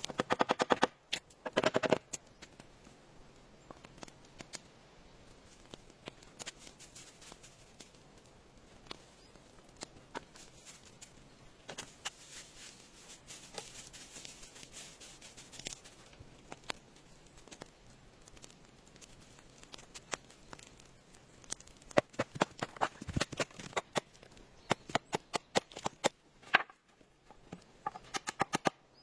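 Irregular clicks, taps and rustling from close handling of things, in clusters near the start and again near the end, with a few seconds of hiss in the middle.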